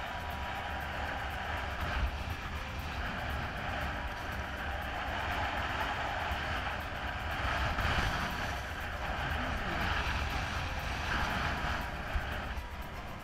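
Wind buffeting an action camera's microphone, a steady rush with heavy low rumble, along with water hissing past a windsurf foil board sailing at speed.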